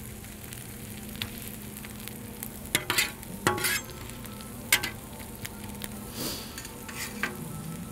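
Diced peppers and onions sizzling in butter on a steel flat-top griddle, with a metal spatula scraping and tapping on the griddle top a handful of times.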